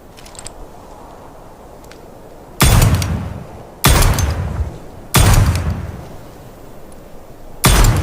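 Revolver shots: a couple of faint clicks, then four loud single shots over about five seconds, the first three a little over a second apart and the last after a longer pause, each with a ringing tail that dies away.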